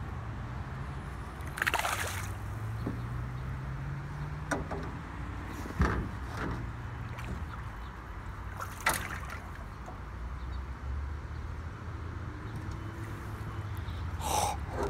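Water splashing and sloshing as a hooked tilapia thrashes at the surface beside a boat and is lifted out by hand. There are sharper splashes about two, six and nine seconds in, over a steady low hum.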